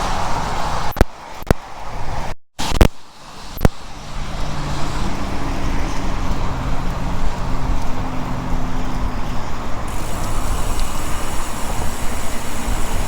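Road and traffic noise heard while riding a bicycle on wet streets: a steady rush with a few sharp clicks and a brief cutout in the first few seconds. After that comes a low steady hum of a motor vehicle.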